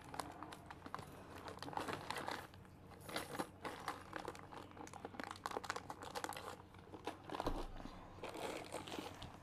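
Thin plastic zip-lock bag crinkling and rustling as it is handled, with dense irregular crackles coming and going in short bursts.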